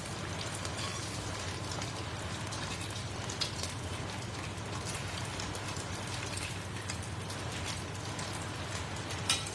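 Bánh xèo batter frying in oil in a small pan, a steady crackling sizzle with a few sharper pops.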